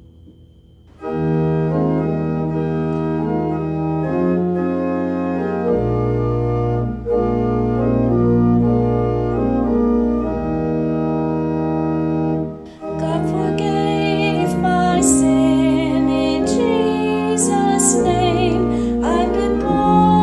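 Organ playing held chords as a hymn introduction, starting about a second in after a quiet fade. About two-thirds of the way through, a solo singing voice with vibrato comes in over the organ.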